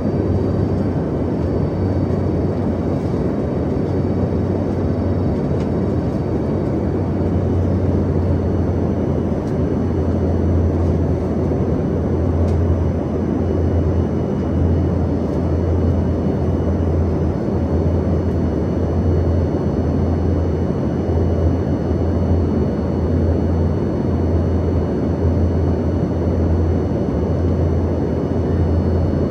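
Cabin noise of an Embraer ERJ-145 regional jet: a steady rumble from its rear-mounted Rolls-Royce AE3007 turbofans and airflow, with faint high whining tones over it.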